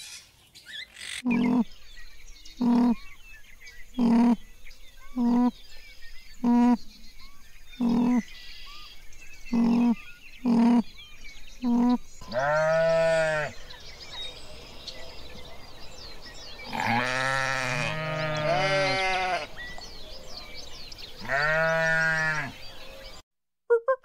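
Animal calls: about nine short pitched calls roughly a second apart, then four longer drawn-out calls, each rising and falling in pitch, two of them overlapping.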